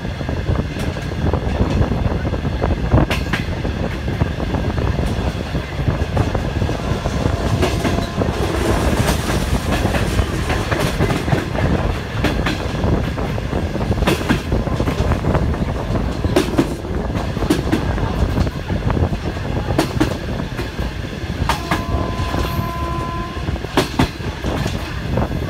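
Conventional locomotive-hauled passenger coach running at speed, heard from an open window: steady wheel rumble and wind noise, with the wheels clacking over rail joints and switches. Near the end a brief steady high tone sounds.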